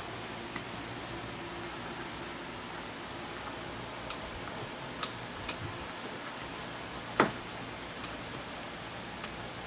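Cheese sauce bubbling hard in an aluminium canteen cup over a hand-sanitizer gel fire in a Crusader cooker: a steady crackling hiss. A metal spoon clicks against the cup a handful of times, loudest about seven seconds in.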